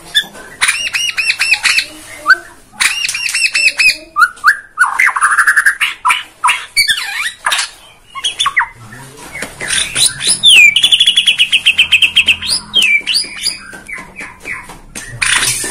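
White-rumped shama (Bornean murai batu) singing a varied song of fast rattling trills, sharp clicks and gliding whistled notes. About ten seconds in, it holds one long rapid trill for a couple of seconds.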